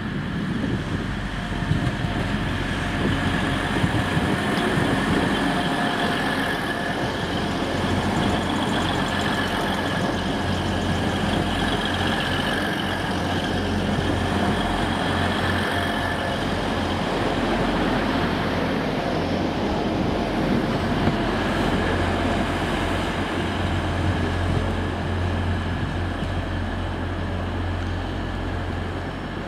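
A train running at the station: a steady loud rumble with a low hum and several steady high whining tones, easing slightly near the end.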